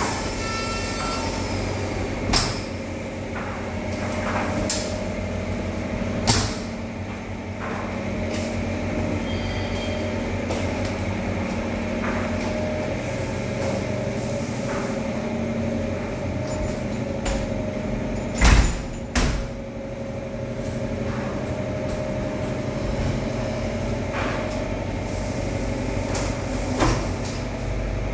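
White uPVC sliding window sashes and casement doors being slid and swung open and shut, with a sharp clunk each time a sash or door meets its frame or latches, about six in all; the loudest pair comes about two-thirds of the way through. A steady background hum runs underneath.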